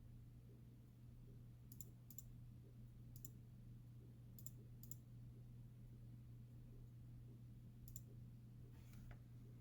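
Computer mouse clicking: about seven sharp, scattered clicks, some in quick pairs, over a faint steady low hum.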